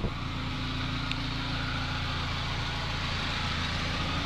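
Turbocharged 1.8-litre four-cylinder of a 1994 Mazda Miata idling steadily, heard with the hood open, with a click right at the start.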